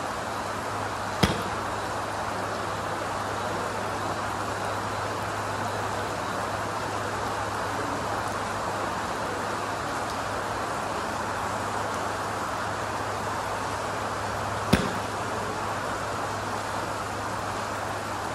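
Two sharp strikes of a Mizuno MP-33 forged blade iron hitting golf balls off a range mat, about a second in and again about fourteen seconds later, over the steady hiss of rain and a low hum.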